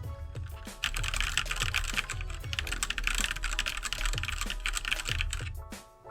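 Fast typing on a Keydous NJ68 mechanical keyboard with Gateron Black switches: a quick run of keystroke clicks starting about a second in and stopping just before the end, over background music.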